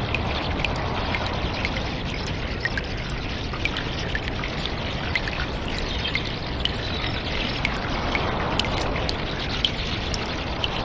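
Cave ambience: water trickling steadily, with many small drips landing at irregular intervals.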